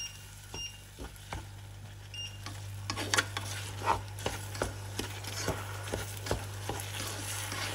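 Wooden spatula stirring rice and toasted vermicelli in melted butter in a nonstick pan: a light sizzle with irregular scrapes and taps of the spatula against the pan. A steady low hum runs underneath.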